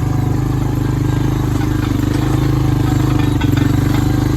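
ATV engine running steadily at working speed while it pulls a roller crimper through standing buckwheat.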